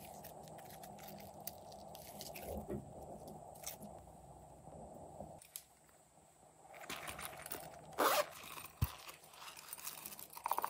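Soft glossy slime being stretched and pulled by hand, giving small sticky clicks and crackles. After about five and a half seconds it changes to a plastic toy dispenser being handled and shaken, with small candy sprinkles rattling out onto slime. The loudest sharp burst comes about eight seconds in, and there is quick clicking near the end.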